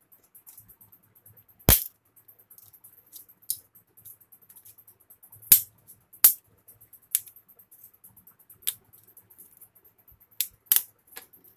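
Sharp snaps and clicks of a plastic switch-board front plate being bent and broken by hand, about seven cracks spaced irregularly, as the pre-marked knockout is snapped out to make the socket opening.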